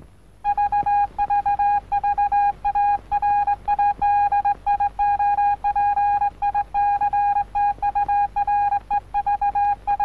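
Morse code beeps: one steady tone keyed on and off in dots and dashes, starting about half a second in, the radio-telegraph signal of a film studio's radio-tower logo.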